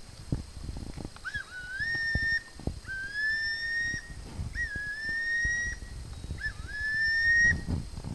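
Four whistled calls, each about a second long, opening with a short dip and then rising slowly in pitch, over low thumping noise.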